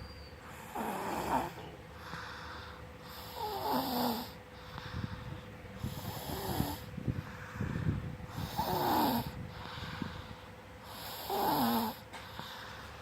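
A small child snoring like an old person: a rasping snore about every two and a half seconds, five in all.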